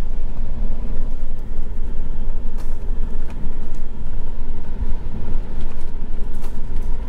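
RV driving onto a dirt and gravel pull-off, heard from inside the cab: a steady low engine and road rumble with occasional knocks and rattles as it rolls over the rough ground.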